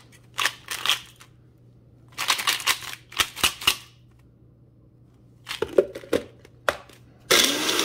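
Ice cubes rattling and knocking inside a Mainstays personal blender's plastic cup in several bursts as the cup is lifted off the base and shaken to loosen ice the blades had stopped chopping, then clicks as it is set back on. Near the end the blender's motor starts and grinds the ice briefly.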